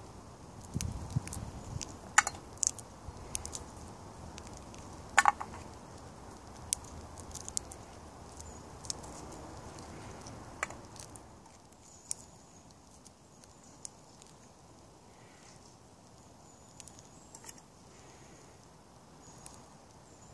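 Acorns being shelled by hand: the shells crack and snap open in scattered sharp clicks, the loudest about 2 and 5 seconds in.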